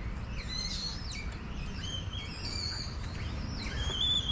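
Several small birds chirping and whistling, short high-pitched calls overlapping, some sliding down in pitch, over a steady low background rumble.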